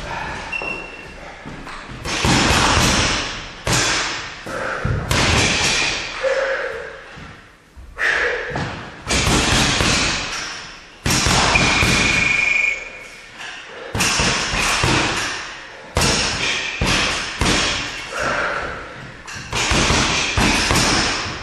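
Boxing gloves punching a double-end ball in quick combinations: a run of thuds and slaps, each trailing off in the room's echo, with short pauses between flurries.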